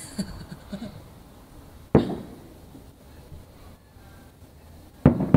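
Two sharp bangs of distant fireworks about three seconds apart, each dying away quickly, the second louder, over a quiet background.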